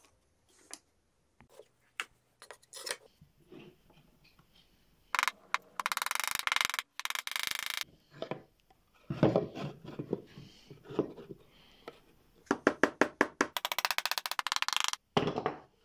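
Small hammer tapping on a wooden box: a quick series of light sharp knocks in the second half, with two spells of steady noise lasting a second or two, one near the middle and one near the end.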